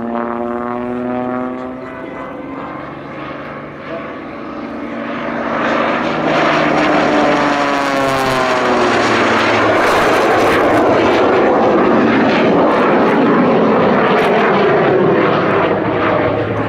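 Propeller airplane flying past. Its engine drone grows loud about five seconds in and drops in pitch as it goes by, then stays loud until near the end.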